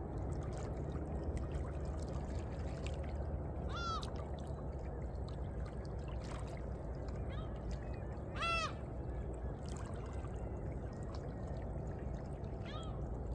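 Sea water lapping and sloshing steadily among coastal rocks. A bird calls three short times over it, the loudest call near the middle.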